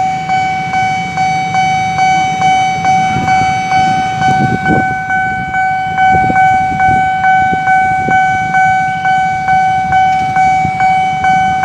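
Railroad crossing warning bell ringing steadily, about one and a half to two strikes a second, as the crossing signals an approaching train. A low rumble of traffic or rail noise sits under it, strongest about four to five seconds in.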